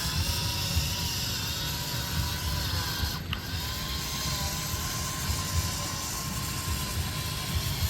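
Toy excavator's small electric motor and plastic gearbox whirring and grinding steadily as it drives, with a brief break about three seconds in.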